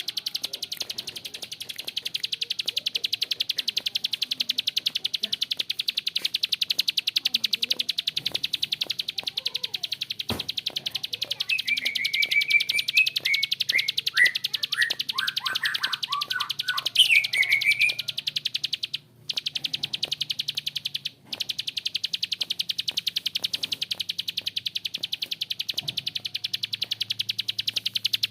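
Prinia ('prenjak klik') giving a long, harsh, rapid clicking rattle, a fast even run of dry clicks broken by two short pauses about two-thirds of the way in. Midway, another bird adds a short series of lower notes that fall in pitch.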